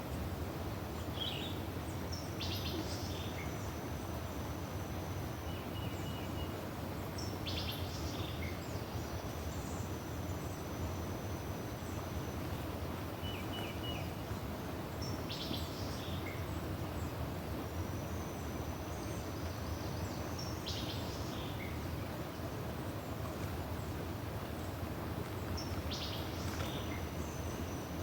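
A bird repeats the same high song phrase about every six to eight seconds: a few short clipped notes, then a long thin steady whistle held for two to three seconds. Under it runs a steady low outdoor rushing.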